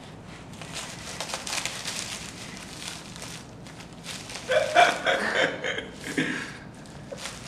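A cat chewing and kicking at a crinkly catnip packet, the packet rustling and crackling in quick bursts. Near the middle comes a short burst of voice lasting a couple of seconds, the loudest sound.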